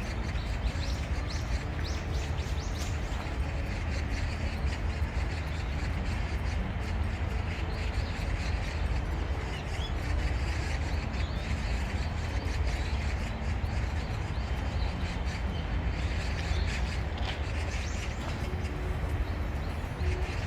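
Outdoor park ambience: small birds chirping now and then over a steady low rumble.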